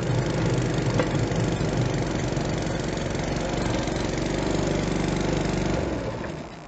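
Small engine of a motorized railcart running steadily as the cart rolls along the track, then dying away near the end as the cart slows to a stop.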